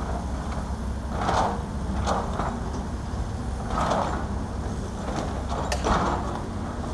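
Diesel construction machinery running with a steady low rumble. Short scraping, hissing sounds come every second or two.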